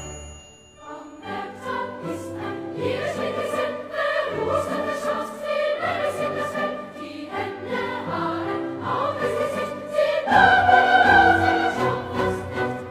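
Classical music with a choir singing. It comes in about a second in and swells louder about ten seconds in.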